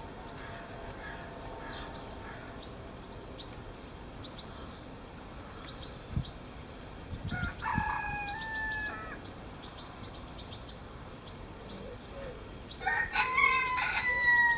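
A rooster crowing twice, once about seven seconds in and again, louder, near the end. Small birds chirp faintly in the background.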